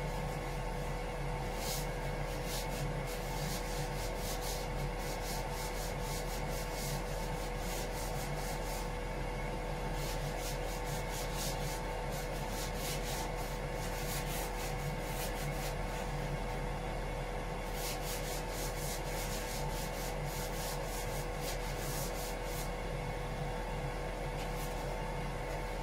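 Sanding the painted bilge of a boat's engine room: runs of quick, scratchy strokes over a steady hum, with short pauses about ten seconds in and again a little past the middle.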